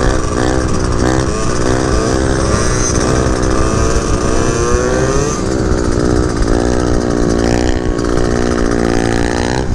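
Two-stroke scooter engines running hard at speed, a buzzing pitch that wavers up and down with the throttle and climbs steadily through the last few seconds.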